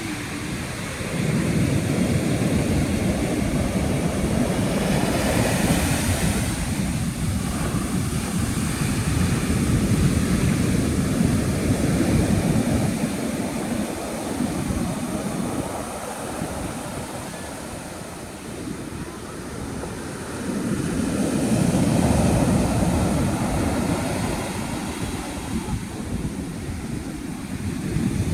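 Atlantic ocean surf breaking on a beach: a steady wash of waves that swells as a wave breaks soon after the start and again about two-thirds of the way in, easing between. Wind rumbles on the microphone.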